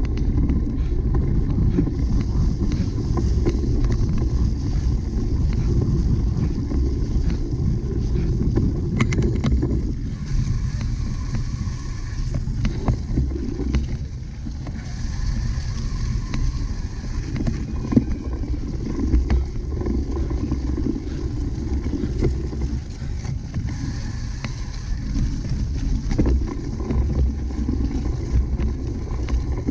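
Steady low rumble of wind and riding on the microphone of a camera carried along on a cyclocross bike, with scattered sharp clicks and rattles. It eases a little about ten seconds in.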